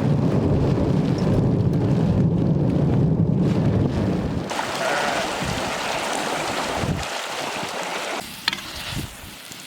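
Storm noise: a loud low rumble of wind for about four and a half seconds, then a hiss like rain that fades, with a few sharp clicks near the end.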